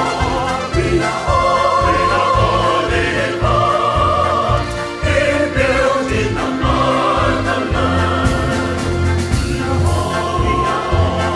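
Choir singing a song in held notes over a pulsing bass line and drums, with cymbal strokes near the end.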